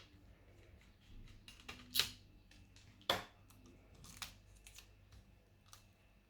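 Scattered sharp clicks and taps from laptop parts and tools being handled during a drive swap, with two louder clicks about two and three seconds in.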